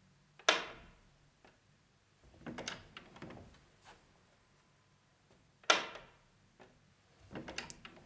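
Magnetic latch tongue of an interior door slapping against the strike in the jamb as the door is shut: a sharp, loud clack, twice, about five seconds apart. Between the two is a softer clatter of latch and handle as the door is opened. This slap is the unwanted loud knock of the magnetic latch.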